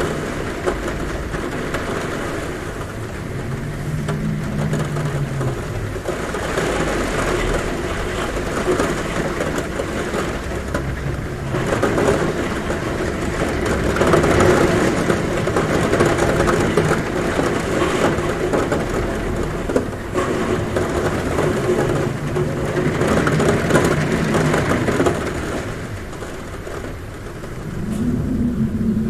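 Heavy rain pouring steadily on a roof, with wind humming and moaning in gusts that swell and fade every several seconds.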